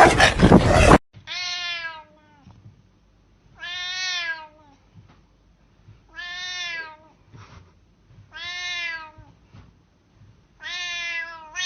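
A cat meowing five times, long drawn-out meows that rise and fall in pitch, about two and a half seconds apart. Before them, a loud noisy burst cuts off suddenly about a second in.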